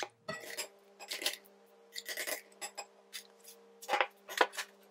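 A spoon scraping and knocking against glass bowls as mashed potato is scooped up and dropped onto the filling in a glass oven dish: a string of irregular clinks and taps, the two loudest about four seconds in.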